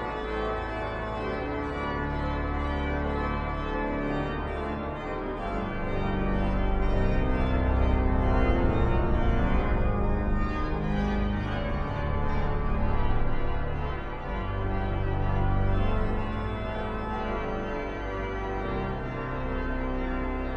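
Large Aeolian-Skinner cathedral pipe organ playing, with long held deep pedal notes under busy, full chords. It swells louder about a third of the way in, then eases back.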